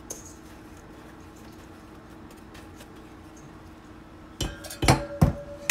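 Faint scratching of sugar for the first few seconds, then, from about four and a half seconds in, a stainless steel bowl and a metal bundt pan knocking together several times with a ringing clank.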